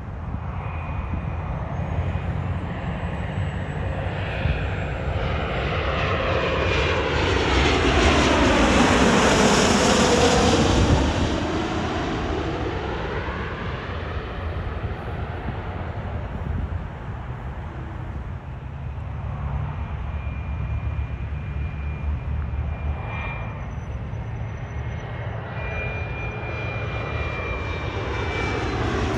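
Business jets on landing approach passing low overhead, their turbofan engines rushing with a thin high whine. The first grows loudest about ten seconds in, with a sweeping whoosh as it passes over. A second jet is closing in and getting louder at the end.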